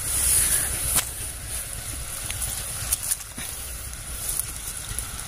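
Night insects chirring steadily, with rustling and a few sharp clicks from handling a fishing line among waterweed, one about a second in and others about three seconds in.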